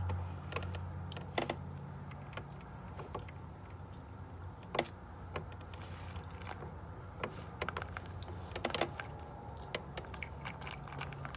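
Irregular small clicks and crackles of fingers picking through shell-on seafood and corn in a plastic tub, over a steady low hum.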